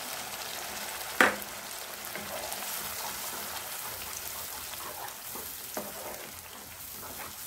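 Onion-tomato masala sizzling in a kadai as ground coconut paste is poured in and stirred with a spatula: a steady sizzle, with one sharp knock about a second in and a few light spatula taps and scrapes after it.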